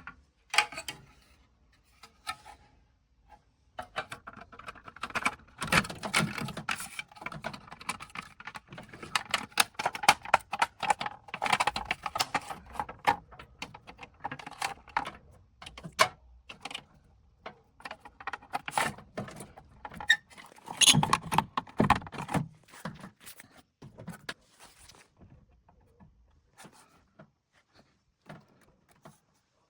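Dense, irregular clicking and rattling of hands handling hardware, with no steady motor sound. The clicks are busiest for about twenty seconds, then thin out to a few scattered clicks near the end.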